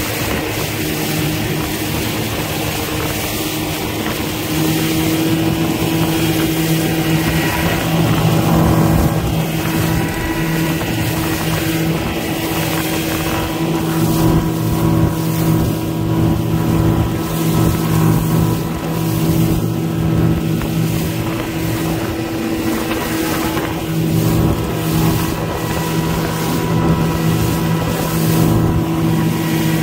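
Fishing boat's motor running steadily under way, a constant hum that gets louder about four and a half seconds in, with the rush of wind and water over it.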